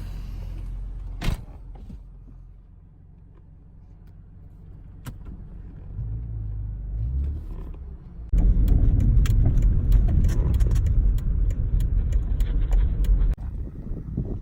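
Car driving noise: a low engine and road rumble, with a single sharp click a little over a second in. It becomes much louder and rougher, with crackling, after a sudden change about eight seconds in.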